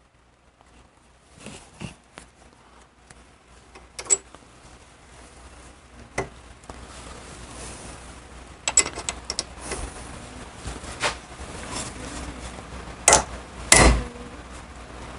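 Scattered metal clinks and knocks as a Harley-Davidson Panhead clutch hub, its new lining loaded with brass rivets, is handled and set onto a bench riveting tool. Two sharper knocks come near the end.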